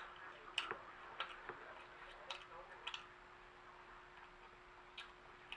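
Close-up eating sounds: a few sharp, irregularly spaced mouth clicks and smacks while chewing turkey wing, over a faint steady hum.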